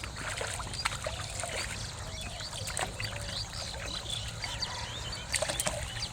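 Water splashing and trickling in a shallow canal: a run of small, irregular splashes and drips, as of a hooked fish thrashing and water being disturbed, over a steady low hum.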